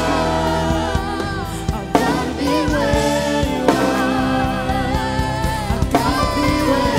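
Live worship song: a woman singing long, bending notes over sustained keyboard chords and a drum kit.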